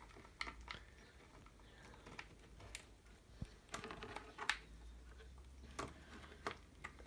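Irregular small clicks and taps of parts being handled while the new potentiometer is fitted into a PowaKaddy FW3 electric golf trolley handle. One sharper tap comes about four and a half seconds in.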